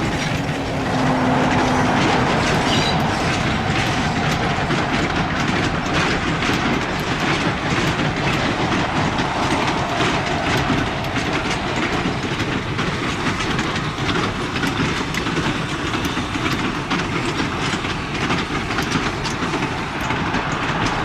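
Steam-hauled train running past close by: a steady, loud rush of noise with rapid wheel clicks over the rail joints.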